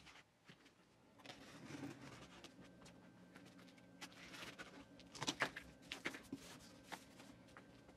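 Faint unboxing handling: a box cutter slitting packing tape along the top of a cardboard box, a soft rasp from about a second in. About five seconds in, the cardboard flaps are pulled open with a quick cluster of sharp clicks and rustles, the loudest part.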